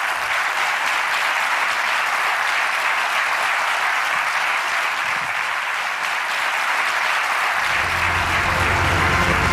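Audience applauding steadily at the end of a talk. Music with a low bass comes in underneath near the end.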